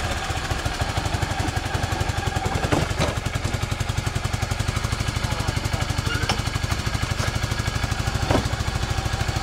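Suzuki Burgman 400 scooter's single-cylinder four-stroke engine idling steadily, its exhaust giving an even, rapid pulsing beat, with a few faint clicks over it.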